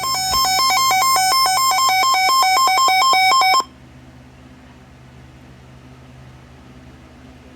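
Electronic emergency-alert tone: a loud, buzzy signal rapidly alternating between two pitches, which cuts off abruptly about three and a half seconds in, leaving only a low steady hum.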